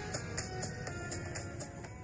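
Background music with a steady beat, growing quieter near the end.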